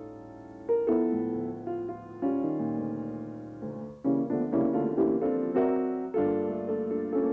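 Grand piano playing jazz chords that ring and fade, a new chord every second or so at first, then struck more often in the second half.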